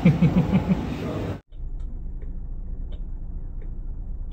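A young girl laughing in quick pulses for about a second; the sound cuts off suddenly and gives way to a steady low hum with a few faint ticks.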